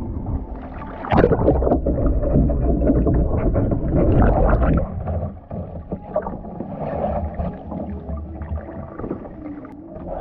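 Water sloshing and splashing against a kayak hull right by a deck-mounted camera, with paddle-blade strokes in the water; a louder rush of water in the first half, then quieter lapping.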